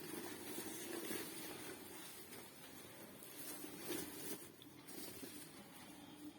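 Faint steady hiss with soft handling noises from the packaging and parts being moved.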